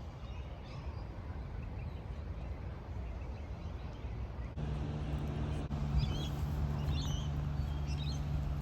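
Small birds chirping in short twittering phrases over a steady low outdoor rumble; the chirps come mostly in the second half.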